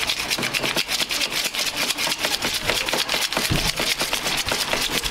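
A stack of banknotes being counted by hand at speed, each note flicked past the thumb with a crisp paper snap in a fast, even run of about ten a second.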